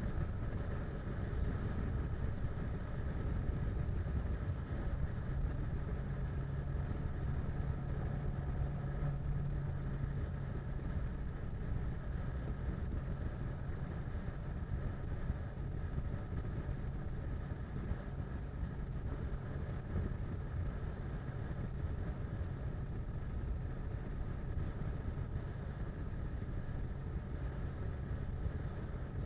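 Steady engine and road noise of a car cruising at highway speed, heard from inside the car: an even low rumble. A low steady hum stands out for a few seconds about a third of the way in.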